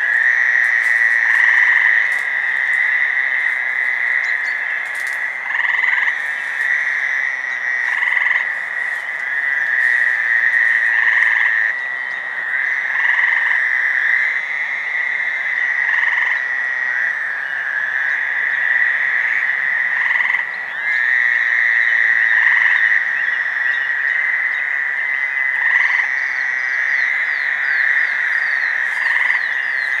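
Chorus of about ten Fowler's toads buzzing in overlapping calls, a continuous sound that swells and dips, with one gray tree frog giving a short trill every few seconds.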